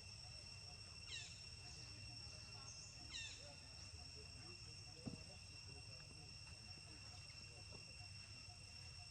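Faint, steady high-pitched insect trill, cricket-like, with two short, high, falling chirps about one and three seconds in.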